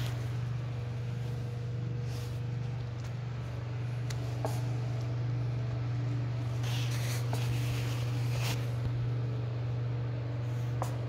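A steady low hum, with a few faint clicks and a short patch of rustling about two-thirds of the way through.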